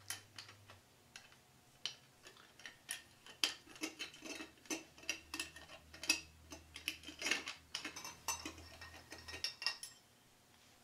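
Small stainless steel camp stove being handled and taken apart: irregular light metal clicks and clinks as its pieces knock together and separate.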